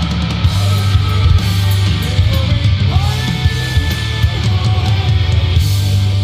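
Loud heavy rock music with distorted electric guitar.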